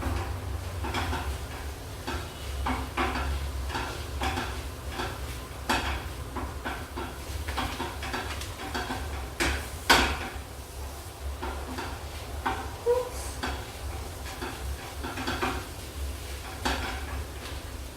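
A utensil stirring and scraping food around a frying pan, with repeated clinks and scrapes against the pan while the food sizzles, over a steady low hum.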